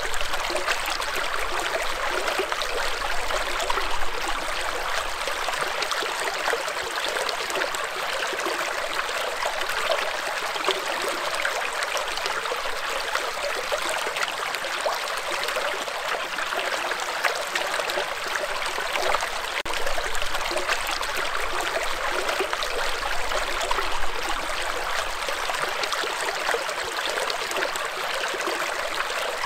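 Small, shallow rocky stream flowing over and between boulders: a steady, even rush of running water.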